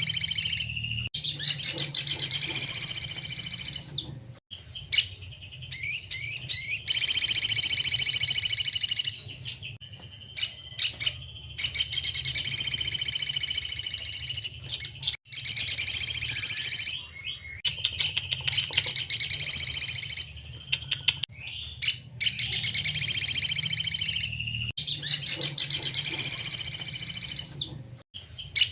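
Sogon bird singing: about six rapid, high twittering song phrases, each lasting two to three seconds, with short chirps in the gaps between them. A steady low hum runs underneath.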